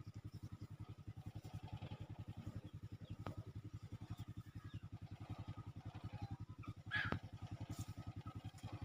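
A small engine running steadily with an even, rapid low pulsing. About seven seconds in, a short, sharper sound rises above it.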